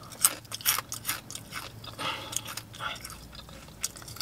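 Close-up chewing and crunching of a crunchy snack chip: a string of sharp, crisp crunches.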